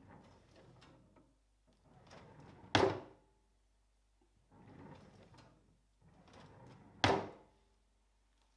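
Kitchen drawer slid open and then pushed shut with a bang, twice. Each cycle has a rolling slide out, a slide back in, and a sharp knock as the drawer closes. The two closing knocks, about three and seven seconds in, are the loudest sounds.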